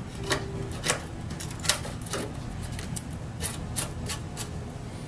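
Small chisel scraping and picking wood out of a shallow groove between two knife cuts in a wooden block: a handful of short, irregular scrapes and taps, about seven in all.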